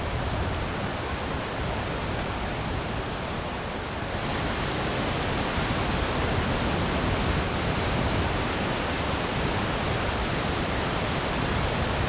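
Steady, even rushing noise of outdoor ambience with no distinct events; the high hiss changes about four seconds in.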